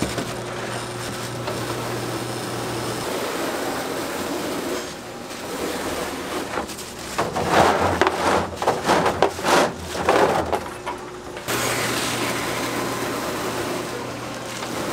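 Steady hum of shop equipment with a noisy background, and in the middle a few seconds of irregular rustling and clatter as gloved hands slide and lift a sticky slab of syrup-coated puffed grain and nuts on a tray.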